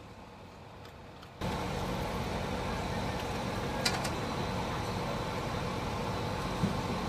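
Steady mechanical drone of distant engines or ground equipment on an airfield, jumping abruptly louder about a second and a half in. There is a faint click near the middle.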